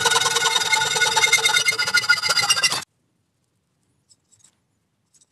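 Hacksaw cutting through a metal T-track held in a vise: fast rasping strokes with a high ringing from the metal, which stops abruptly about three seconds in. After it come a few faint, brief scratches of a small brush against wood.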